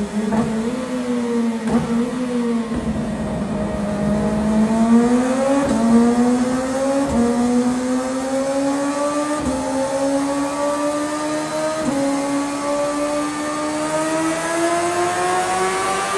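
CFMoto 500SR S motorcycle exhaust under way, accelerating: the engine note climbs steadily, with brief dips at upshifts about six, nine and a half and twelve seconds in.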